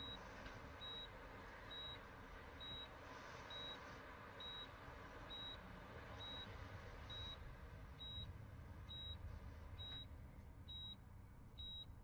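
Bedside patient monitor beeping in time with the heartbeat: a short, high, faint beep about once every 0.9 seconds, over a low steady hum.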